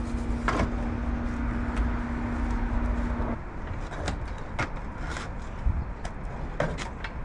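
Scattered clicks and knocks of hand tools working the seat-mount bolts, over a constant low rumble. A steady hum runs until about three seconds in, then stops.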